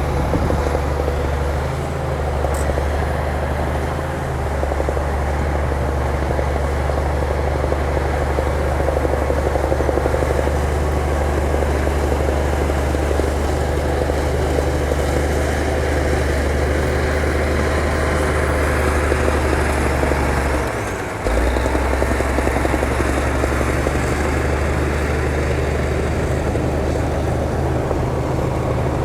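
Diesel engine of a heavy earth-moving machine running steadily with a deep drone; it dips briefly about two-thirds of the way through, then picks back up.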